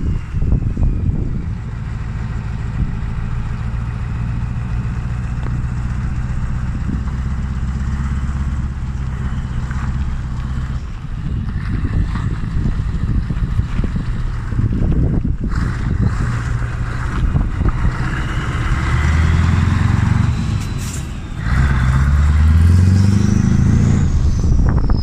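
Scania 143M 500's 14-litre V8 diesel running on the road, heard from a following car. Its pitch rises twice in the last several seconds, with a short lull between.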